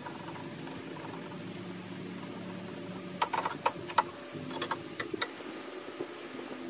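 Open-end wrench on a hydraulic hose flare fitting being tightened: a scattering of small metal clicks and clinks from about three seconds in.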